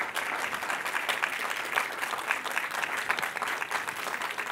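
Applause from a small roomful of people, many hands clapping steadily.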